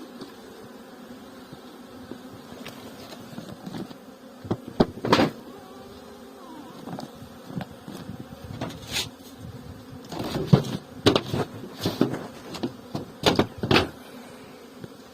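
Honeybees buzzing in a steady drone, with a run of irregular knocks and bumps starting about four and a half seconds in, thickest in the second half.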